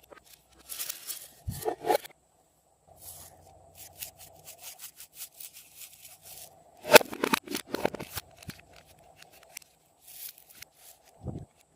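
Hands working glossy slime mixed with Chupa Chups candy, making irregular crackling, crinkling and squishing sounds, loudest in a dense cluster about seven seconds in, with a soft thud near the end.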